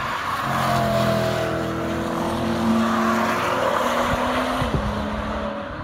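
Sports car engines passing at speed on a race circuit. The engine note holds steady and steps in pitch with the throttle and gear changes, loudest a second or two in, then fading as the cars move away.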